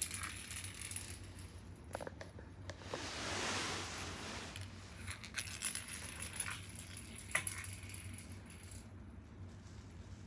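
A small plastic ball toy batted by a cat, rolling across a hard vinyl floor with a swell of rolling noise about three seconds in and scattered light clicks as it bounces and is knocked about.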